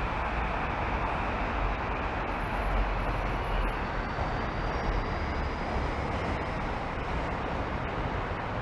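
Steady road traffic on a city street: a continuous rumble and hiss of passing vehicles, with a low swell a few seconds in.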